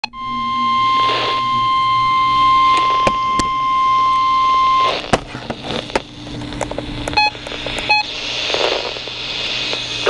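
Weather radio's steady warning alarm tone, cut off abruptly after about five seconds. Clicks of the radio's buttons being pressed follow, with two short electronic beeps near the end as the volume is adjusted.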